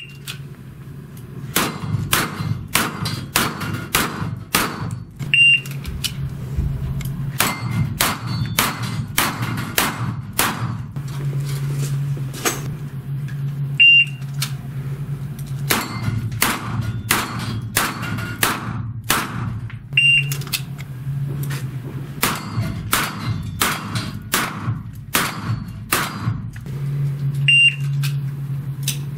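Pistol shots fired at a rack of six steel plates, in quick strings of about six shots, each string begun by a short electronic start beep from a shot timer. A steady low hum runs underneath.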